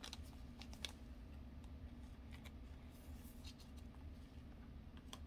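Faint rustling and light clicks of gloved hands sliding a trading card into a soft plastic card sleeve, over a steady low hum.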